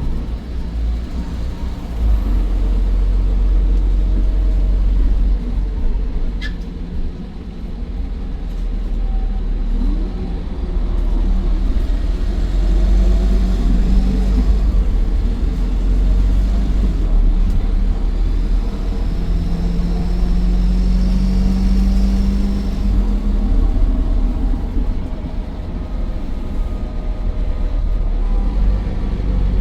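Optare Versa bus's Mercedes-Benz OM934 5.1-litre four-cylinder diesel running under way through its Allison 2100 automatic gearbox: a deep rumble whose pitch rises and falls as the bus pulls away and changes gear, with a faint high turbo whine over it. A single sharp click about six seconds in.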